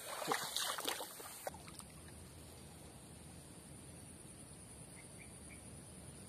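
Outdoor ambience: a few loud rustles and knocks in the first second and a half, then a faint steady low rumble under a thin, continuous high insect drone, with a few tiny chirps about five seconds in.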